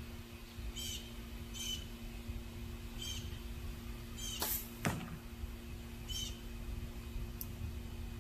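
A bird calling outdoors: short high chirps repeated every second or so. Two sharp knocks come about halfway through, over a steady low hum and a low rumble of wind.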